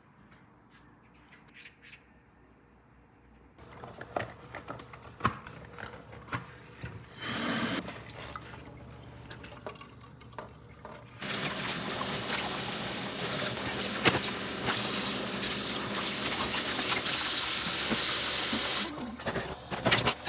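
Dishwashing at a stainless steel kitchen sink: a few seconds of quiet room tone, then light clinks and scrubbing with a short run of water, and from just past halfway the tap running steadily for several seconds until it is shut off near the end, followed by more clatter of dishes.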